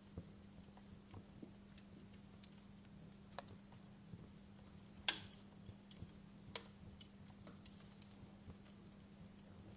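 Wood fire in a fireplace crackling: faint, irregular snaps and pops, with one sharper pop about halfway through, over a steady low hum.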